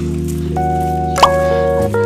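Background music of held chords, the chord changing near the end.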